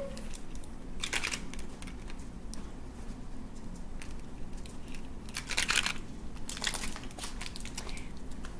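Candy wrappers crinkling as they are handled, in a few short bursts.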